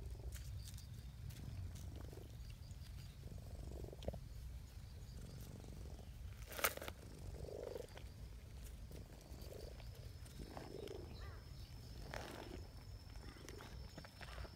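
A cat purring steadily close up while being stroked, with one sharp click about six and a half seconds in.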